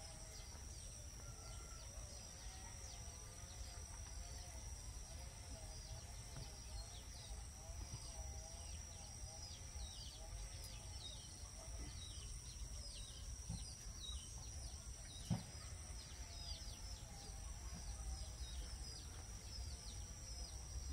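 Faint repeated peeping of baby chicks, short falling chirps one after another, over a steady high-pitched whine and a low rumble. A faint wavering hum comes and goes, and there is a single knock about fifteen seconds in.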